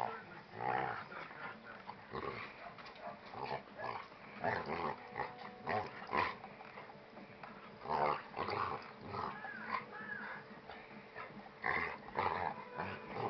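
Two dogs play-fighting, giving short growls in irregular bursts as they wrestle.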